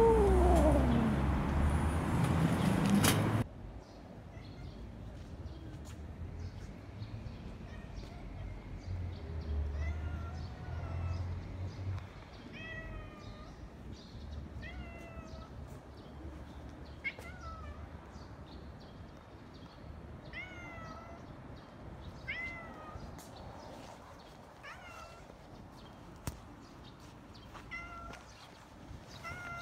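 Long-haired brown tabby cat meowing in greeting: a loud, long meow falling in pitch at the start that breaks off abruptly after about three seconds, then a run of short meows, each rising and falling, about one every two seconds.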